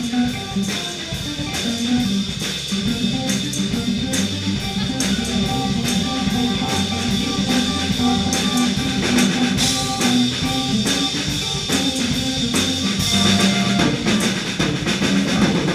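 Live blues band playing an instrumental passage: electric guitar over a drum kit keeping a steady beat with cymbals.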